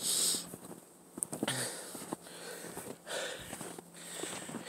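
Footsteps crunching through deep, fresh snow: a short crunch about once a second as someone walks slowly.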